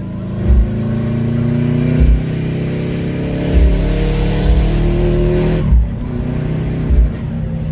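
Subaru Impreza GC8's turbocharged flat-four with a straight-through exhaust, accelerating hard: the engine note climbs steadily for about five and a half seconds with a rising turbo hiss, then drops abruptly as the throttle closes.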